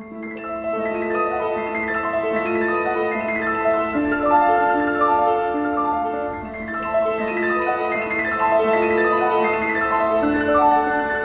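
Instrumental background music: a melody of short notes moving up and down over a steady held low note.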